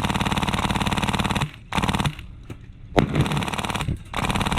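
Polar Star Fusion-engine MK46 airsoft gun firing on full auto in rapid bursts. There are four bursts: a long one ending about a second and a half in, a short one just after, then two more of about a second each.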